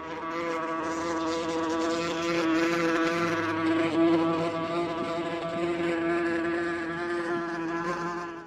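A steady mechanical buzzing whine at one nearly constant pitch with many overtones, cutting off suddenly at the end.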